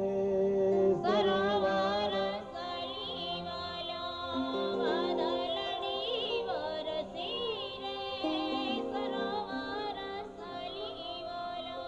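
Background music: a melody with wavering, ornamented pitch over steady held lower notes.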